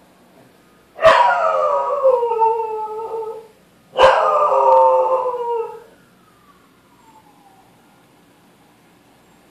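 Corgi howling at a siren: two long howls, each starting loud and sliding down in pitch, the second starting about three seconds in and slightly shorter.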